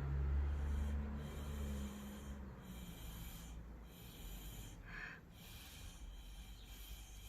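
Breath blown through a drinking straw onto wet acrylic paint: several airy puffs in a row with short pauses between them, pushing the paint into new shapes.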